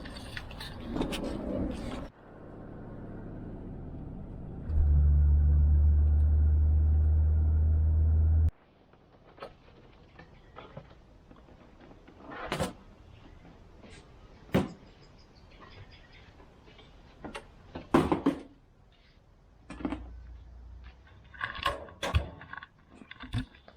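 Steady low drone of a vehicle heard from inside. It gets much louder about five seconds in and cuts off abruptly a few seconds later. Then come scattered sharp clicks and knocks of objects being handled, over a quiet background.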